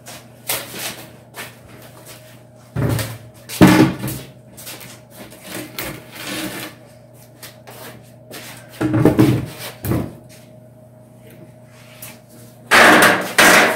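Knocks, bumps and scrapes of a large plywood sheet and a truck's sheet-metal hood being moved and set down: a series of separate clunks, the loudest a longer scrape shortly before the end, over a steady low hum.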